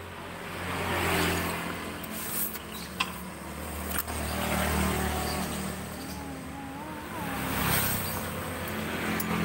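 Motor vehicle engines running past, a low hum that swells and fades several times, with two sharp clicks about three and four seconds in.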